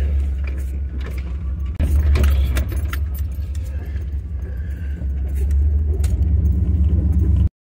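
Steady low drone of a pickup truck's engine and tyres heard from inside the cab on a rough dirt driveway, with loose items in the cab jangling and rattling over the bumps. The sound cuts off abruptly near the end.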